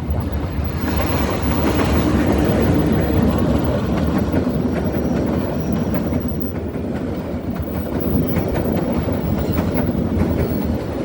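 Train running on rails: a steady rumble with repeated clicks of the wheels over the track, growing louder about a second in.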